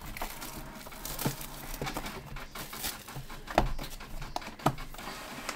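Plastic wrapping on trading-card packaging crinkling and tearing as it is handled and opened, with a few sharp knocks, the loudest two about three and a half and four and a half seconds in.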